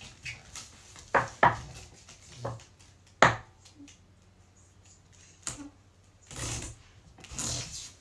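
Knocks and rubbing of a person's hands, legs and body against a dance pole while climbing and spinning on it: a handful of sharp knocks in the first half, then several longer brushing sounds in the second half.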